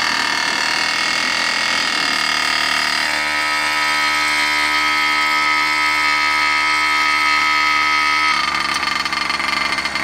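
Two-stroke gas engine of a 1/5-scale Primal RC Raminator monster truck running steadily, its note changing about three seconds in and dropping slightly near the end. The throttle is sticking from snow and ice.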